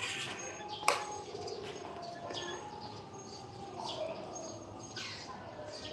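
Faint bird chirps in short falling notes over a steady background, with one sharp knock about a second in.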